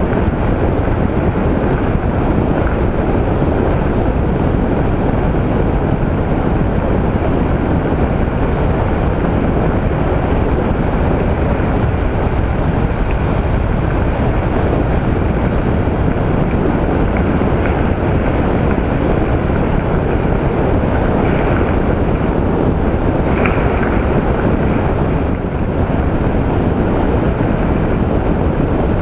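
Steady wind rush over a helmet-mounted microphone on a Honda ST1300 motorcycle at road speed, with the bike's engine and tyre noise underneath. The mic's lost windsock has been replaced by an improvised ShamWow cover.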